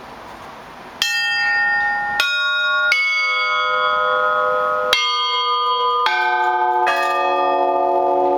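Russian Orthodox church bells from a set of eight, cast by the Lavrov, Olovyanishnikov and Shuvalov foundries, starting a peal about a second in. Single strokes on higher bells follow one another, then two deeper bells join near the end, each stroke ringing on and overlapping the others.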